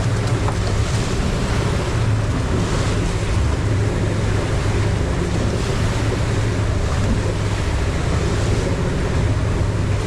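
Steady low drone of a fishing boat's engine under way, mixed with the rush of water and wind buffeting the microphone.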